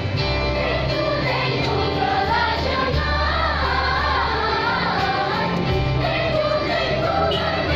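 School choir of children singing a song together, the melody rising and falling, over instrumental accompaniment with sustained low bass notes.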